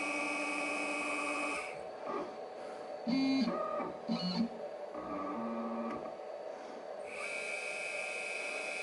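Small CNC router with its spindle running, giving a steady high whine, and its axis stepper motors humming in short jogging moves as the tool is brought against the aluminium tape to touch off. The high whine drops out about two seconds in and comes back near the end; in between come several brief motor buzzes, the loudest a little after three and four seconds in.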